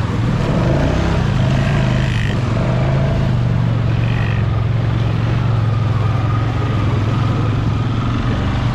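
Honda ATV engine running at a steady pace, a low even drone whose pitch rises slightly in the first couple of seconds.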